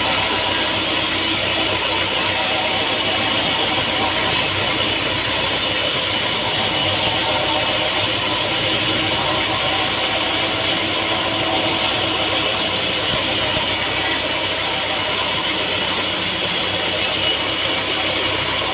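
Sawmill machinery running steadily, a continuous mechanical drone with a high whine over it.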